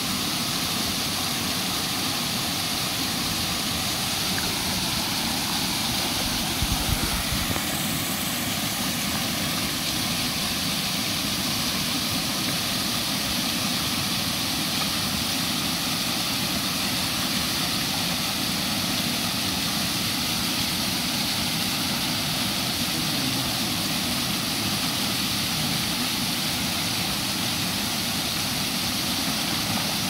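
Steady rush of a small waterfall pouring into a shallow river pool, with water moving around the legs. A brief low thump comes about seven seconds in.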